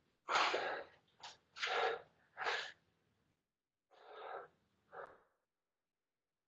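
A person breathing hard through the mouth from exertion: about six short, breathy puffs, the loudest in the first three seconds and two softer ones about four and five seconds in.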